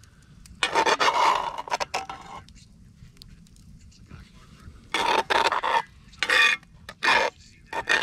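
Metal spatula scraping against the inside of a cast iron Dutch oven while scooping out food: one long scrape about a second in, then three shorter scrapes in quick succession past the middle.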